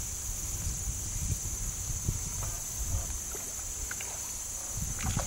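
Outdoor ambience by a pond: a low wind rumble on the microphone under a steady high drone of insects.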